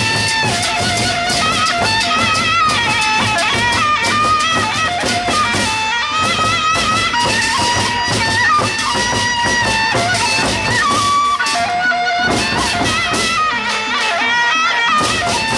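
Sasak gendang beleq ensemble playing: drums and cymbals beat steadily under a wind-instrument melody that moves in held notes.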